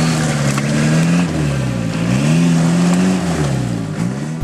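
Isuzu Trooper's engine revving up and down under load as the mired off-roader tries to drive out of deep mud. The pitch rises and falls about three times, then drops away near the end.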